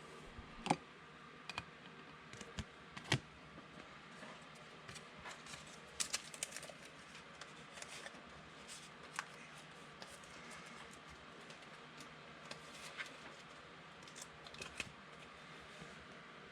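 Faint, irregular clicks and light crinkling as trading-card packs and cards are handled and opened.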